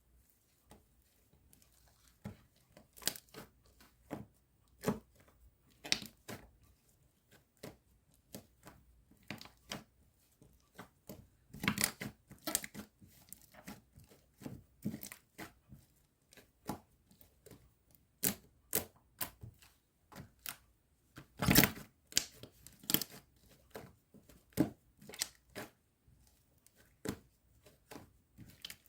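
Blue and pink slime being kneaded and mixed by hand: an irregular run of sticky pops and crackles, with louder pops about twelve seconds in and again past twenty seconds.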